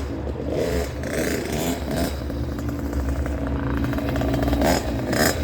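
Small 50cc quad engine running as the ATV is ridden, a steady buzz that shifts a little in pitch with the throttle.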